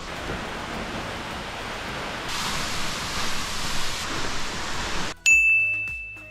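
Waterfall rushing steadily, louder after about two seconds. About five seconds in the rush cuts off abruptly and a single ringing ding sounds and slowly fades.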